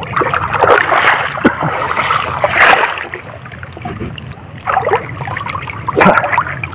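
Seawater splashing and sloshing close to a microphone held at the water's surface, in irregular louder surges with sharp splash spikes.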